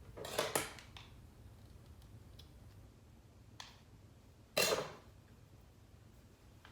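Hands handling the parts and packaging: a short rustle near the start, a sharp click about three and a half seconds in, and a louder rustle a second later, quiet between them.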